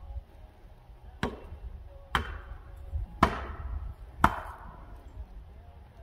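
Four heavy blows struck on wood, about one a second, each ringing out with an echo through the woods.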